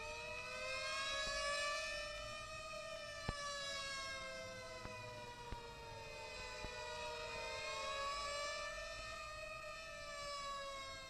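Mechanical motor sirens of Showa-era Tokyo fire engines wailing, several at once, each rising and falling slowly and out of step with the others. A few sharp clicks of record surface noise cut through.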